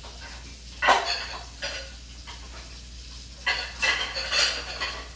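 Cookware and metal utensils clattering: one sharp clank about a second in, a lighter knock soon after, then a run of rattling knocks near the end.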